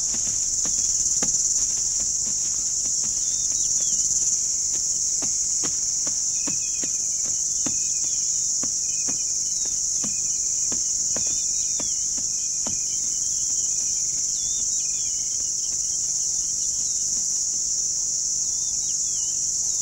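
Steady, high-pitched chorus of insects trilling, with a bird giving short repeated chirps through the middle of the stretch and a few faint scattered ticks.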